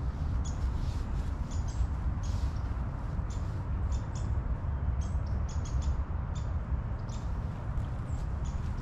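Many short high chirps of small birds, scattered irregularly over a steady low rumble.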